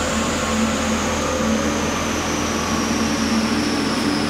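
Car running on a chassis dynamometer, a steady loud mechanical drone from engine and rollers, with a thin high whine slowly falling in pitch.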